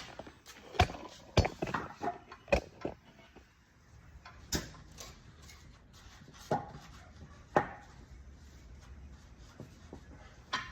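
Scattered sharp knocks and clunks, about seven of them at uneven gaps, from tools and parts being handled during a tractor tire change.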